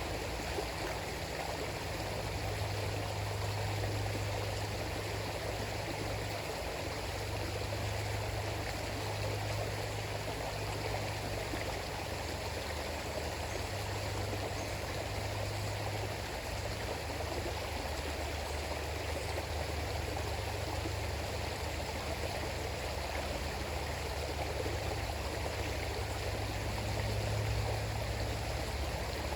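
River water flowing, a steady rush with a low rumble underneath.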